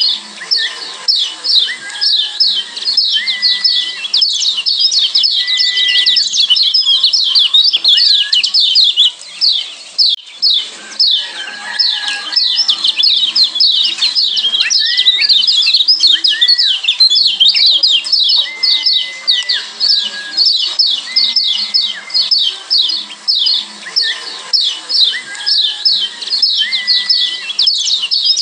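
Lombok yellow white-eyes (kecial kuning) giving a rapid, continuous run of high, sharp 'ciak' chirps, each note falling in pitch, several a second. A lower, short whistled note recurs every second or two underneath.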